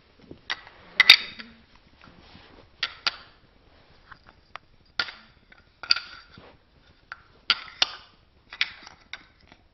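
Wooden toy pieces knocking and clacking together as a toddler handles them: a string of sharp wooden knocks at irregular intervals, the loudest about a second in.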